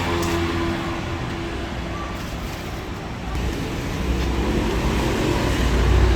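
Road traffic close by: a motor vehicle's engine rumbles, swelling louder through the second half as it passes near.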